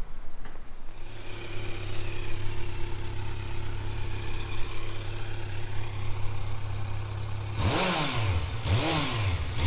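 Kawasaki Z900's inline-four engine, on its stock exhaust, starting about a second in and idling steadily. Near the end it is revved in quick throttle blips, each rising and falling, about one a second.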